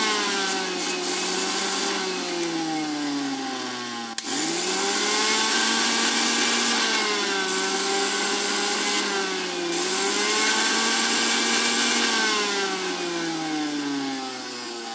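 Philips blender's brushed motor running on newly fitted carbon brushes, a test run after the repair. Its whine sinks in pitch and picks back up several times as the speed buttons are worked, with a click about four seconds in before it spins up quickly again.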